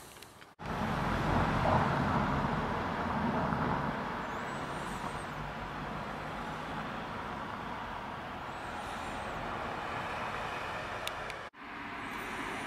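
Street traffic noise: a vehicle passes, swelling and fading over the first few seconds, then a steady hum of traffic. The sound cuts out briefly about half a second in and again near the end.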